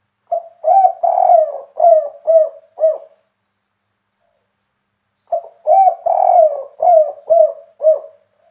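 Spotted dove (derkuku), seven years old, cooing twice with about two seconds' silence between phrases. Each phrase opens with a short note and a drawn-out coo, then ends in three short, separate 'kuk' notes: the 'kuk 3' song, in a big voice.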